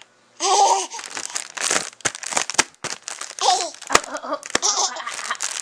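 Crinkling and crackling of a crumpled material being handled by a baby, with a few sharp clicks. The baby makes short vocal sounds about half a second in and again after about three seconds.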